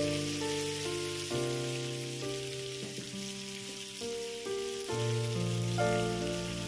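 Beef sizzling steadily as it stir-fries in a hot wok, under background music of held chords that change about every second.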